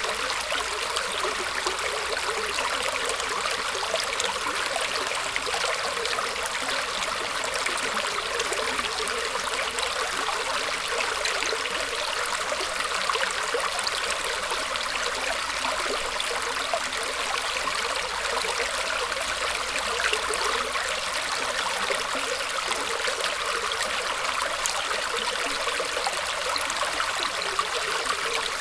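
Small stream of water running steadily through roots, with a continuous trickling, babbling rush.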